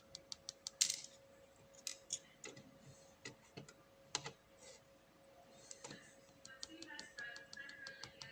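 Small sharp clicks and taps of lock pins and springs being taken out of an opened Abus 7240 padlock core and set down, coming in irregular runs of quick ticks, over a faint steady hum.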